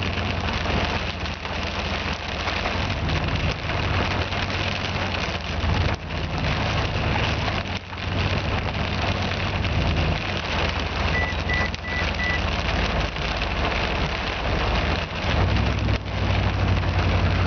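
Heavy wind-driven rain beating on a vehicle in a storm's high winds, over the low steady hum of the idling engine. A quick run of four short high beeps comes about eleven seconds in.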